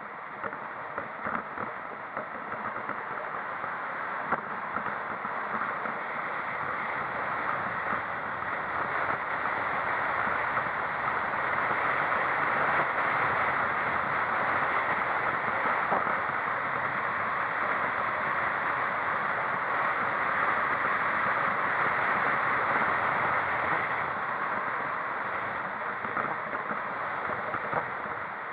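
Steady road and wind noise from a vehicle on the move, rising gradually to a louder rush through the middle and easing off near the end.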